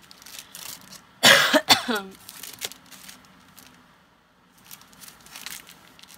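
A woman coughs twice about a second in: a loud burst, then a shorter one that ends with a falling pitch. Light clicks and rustles of items being handled come before and after.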